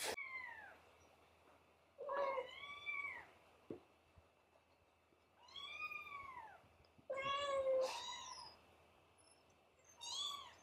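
Cats meowing: about five high, arching meows, spaced one to three seconds apart.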